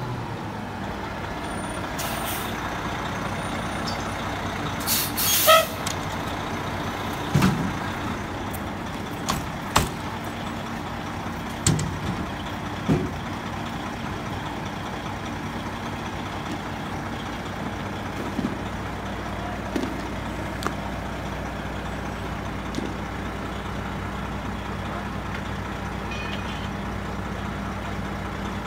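Fire engine's diesel engine running steadily. Over it, in the first half, come a brief loud hiss-like burst and several sharp knocks and clanks.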